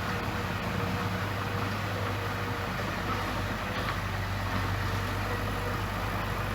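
Bulldozer's diesel engine running at a steady, even pitch.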